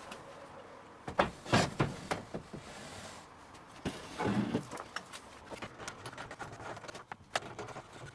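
Pine stud timber being handled on a workbench: a few sharp wooden knocks, then a short scraping rub, with scattered small ticks.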